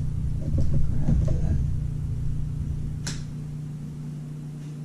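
A steady low hum, with a single sharp click about three seconds in.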